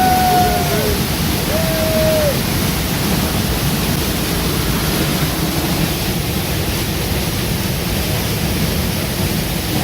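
Steady, loud rushing of a waterfall swollen with rain, heard from behind the falling water.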